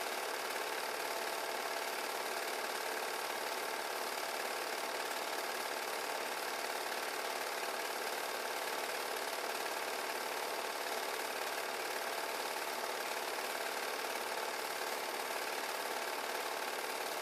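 An 8 mm home-movie projector running: the steady mechanical sound of its motor and film transport, even and unchanging throughout.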